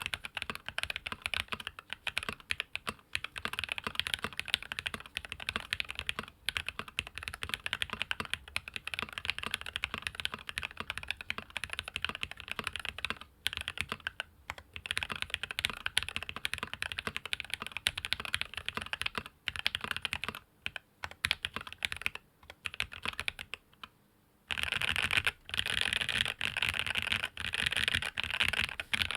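Fast, continuous typing on a SQUARE.X custom mechanical keyboard: lubed Alpaca 62g linear switches in an aluminium-plate sandwich mount, with Milkyway keycaps, giving a dense patter of key strikes. The typing stops briefly a little before three-quarters of the way through, then resumes louder and denser.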